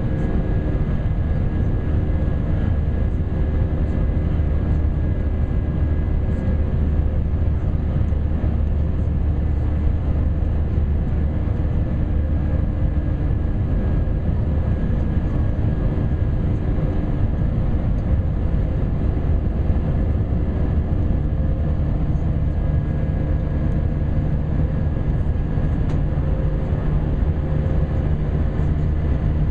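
Steady cabin drone of a climbing Airbus A320: engine and airflow noise with several constant hums. Another low hum joins about two-thirds of the way through.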